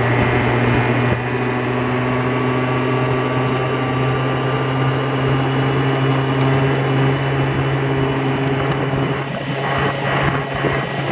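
Moped engine running steadily at a constant cruising speed, a droning hum that holds one pitch throughout.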